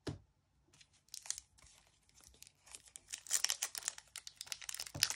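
Foil booster pack of FIFA 365 trading cards being torn open by hand, the wrapper tearing and crinkling in quick irregular crackles that grow louder and busier from about three seconds in. A light knock comes right at the start.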